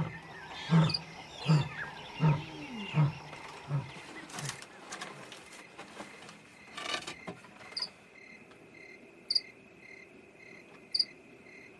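Lion roaring at night: a deep moan falls into a run of about six grunts, each weaker than the last. Crickets chirp steadily, and two short sharp clicks come near the end.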